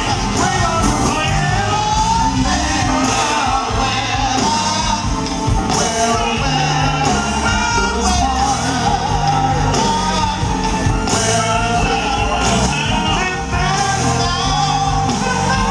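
Live soul/R&B band performance: male lead vocals over backing singers, bass guitar, keyboards and drums, loud and continuous, heard from the audience.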